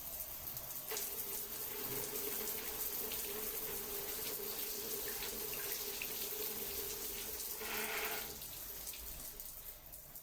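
Running water splashing steadily, like a tap pouring into a basin, with small drip-like clicks; it eases off after about eight seconds.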